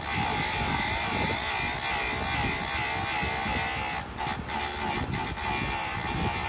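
Small electric motor running steadily with a high, slightly wavering whine, dipping briefly a few times in the second half.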